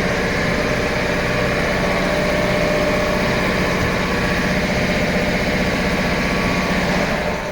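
Maruti Swift VDI's 1.3-litre diesel engine idling steadily, the sound falling away just before the end.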